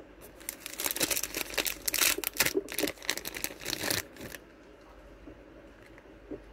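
Clear plastic packaging around small merchandise crinkling as it is handled, a dense crackle lasting about four seconds before it stops.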